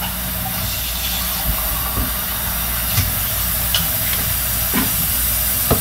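Steady hiss with a low hum underneath, broken by a few light knocks.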